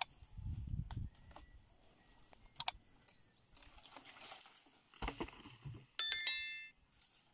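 Subscribe-button animation sound effects: a sharp mouse-style click at the start and another about two and a half seconds in, then a bright bell chime about six seconds in that rings with several tones and dies away within a second. Faint outdoor rustling lies under them.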